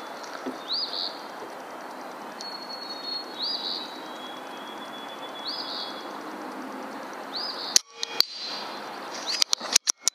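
A single rifle shot about three-quarters of the way in, then several sharp clicks near the end. Under it is a steady outdoor hiss, with a bird's short rising-and-falling call repeating about every two seconds.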